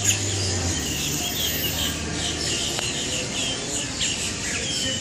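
A large flock of roosting birds calling, a dense chatter of many short chirps overlapping throughout. A low hum sits underneath in the first couple of seconds.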